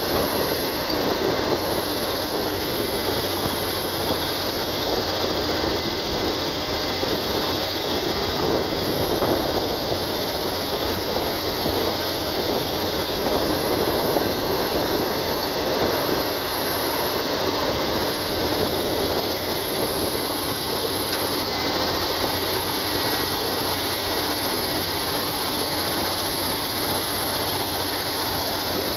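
Caterpillar 320D hydraulic excavator at work, its diesel engine and hydraulics running steadily under load as it digs and swings loads of dirt into a dump truck.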